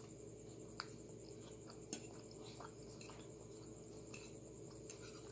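Quiet eating sounds: a mouthful of creamy pasta being chewed, with a few faint clicks, the clearest about a second and two seconds in. Under it is a steady faint high trill of crickets.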